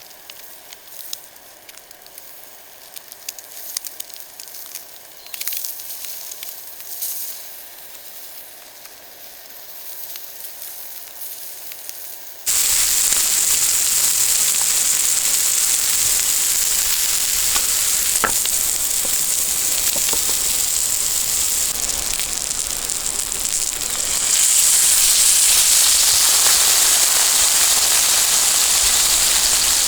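Food sizzling over a fire, with scattered crackles and pops. About twelve seconds in it cuts abruptly to a much louder, steady hiss, which steps up again a few seconds before the end.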